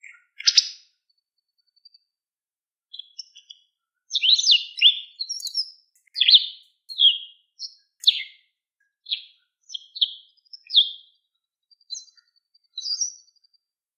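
White wagtail calling: short, sharp high chirps, a few scattered notes at first, then a quick string of them from about four seconds in until near the end.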